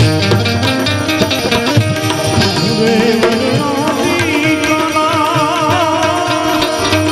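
Instrumental interlude of a Gujarati bhajan: tabla-style hand drums keeping time under a held melodic line, which takes on a wavering vibrato from about halfway through.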